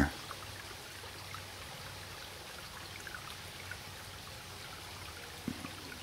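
Shallow runoff water trickling steadily over rocks in a small woodland channel, with a faint knock about five and a half seconds in.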